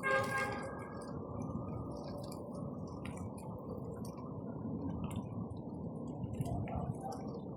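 Bonfire crackling: scattered sharp pops and snaps over a steady low rush of burning. A brief pitched tone sounds in the first second.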